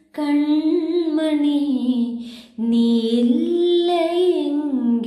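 A single voice singing a slow Malayalam song in long held, gliding notes, with a short break about two seconds in.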